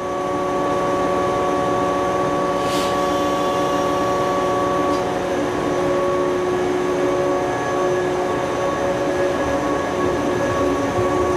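KuMoYa 145 electric railcar humming steadily: an even, pitched electrical hum over a constant background rumble, with a sharp click about three seconds in.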